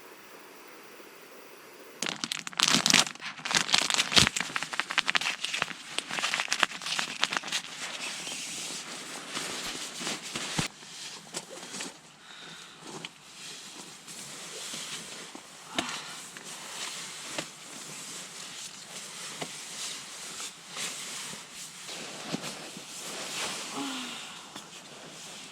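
Burning firewood crackling and popping, starting about two seconds in. The snaps come thickest at first and then go on more sparsely.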